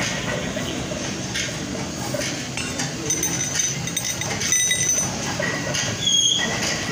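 Loose steel rollers of a large cylindrical roller bearing clinking against each other and the bearing ring as they are picked out and handled, a few light metallic clicks and short rings, over a steady rumbling background noise.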